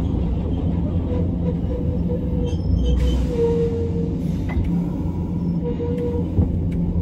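Hiroshima Electric Railway 1900-series tram, a former Kyoto city streetcar, heard from on board while running: a steady low rumble of wheels and motors. A faint held whine comes in about a second and a half in and again near six seconds.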